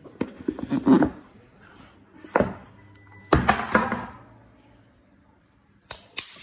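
A rigid cardboard product box being handled: rustling and scraping as its lid is worked off, then knocks about two and a half and three and a half seconds in as the box parts are set down on a wooden table, and two light taps near the end.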